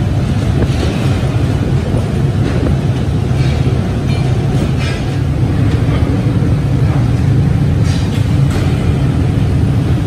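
Steady low rumble of running forge-shop machinery, with about half a dozen short metallic clanks of steel bars and tongs being handled.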